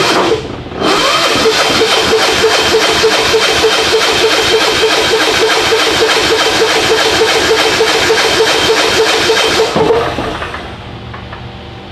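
Starter cranking the Titan 7500 generator's single-cylinder diesel engine over for about nine seconds in an even, rapid rhythm of compression strokes, after a brief first bump, without it firing. The engine is not set to run: it is being turned over only to push fuel and air out of the cracked-open injector line.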